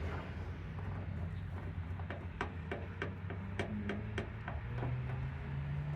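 Light metallic clicks, about three a second, from working a truck door striker bolt loose with channel-lock pliers, over a low steady hum.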